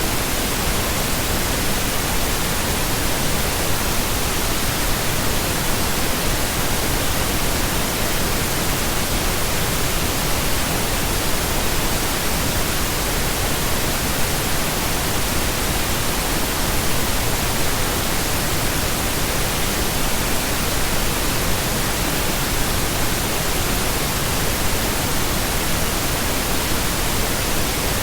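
Continuous pink noise: a steady, even hiss spread across the whole frequency range, with no change or events.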